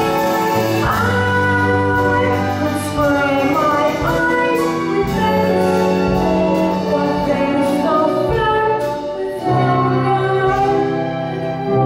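A boy singing a solo number over instrumental accompaniment, in a musical theatre style.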